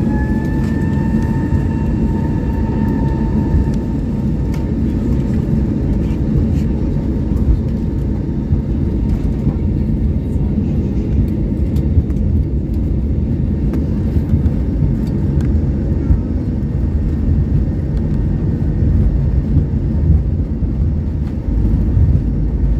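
Airbus A321neo cabin sound as its Pratt & Whitney PW1100G geared turbofans spool up: a rising engine whine levels off in the first second and fades out after a few seconds. Under it runs a loud, steady low rumble with frequent short bumps and rattles.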